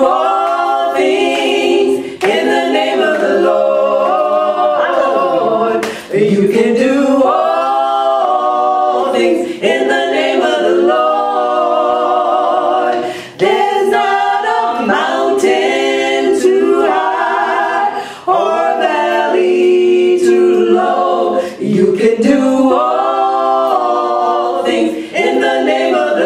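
Three women singing a gospel song a cappella in close three-part harmony (soprano, alto and tenor). They sing in phrases a few seconds long with short breaths between them, the held notes carrying vibrato.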